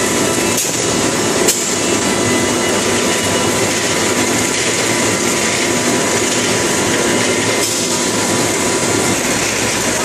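Short-cycle melamine laminating hot press line running: a steady, dense mechanical clatter and hum from the board-handling conveyors and feed frame, with a couple of sharp clicks in the first two seconds.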